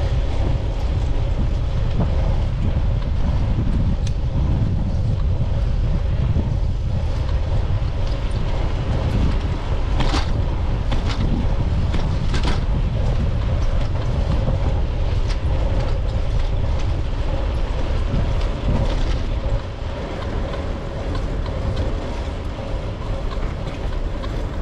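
A bicycle rolling along a paved path, heard through a GoPro's microphone: steady wind buffeting and tyre rumble, with a few sharp clicks about ten to thirteen seconds in.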